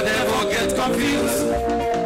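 Gospel band music playing, with held notes over a dense accompaniment.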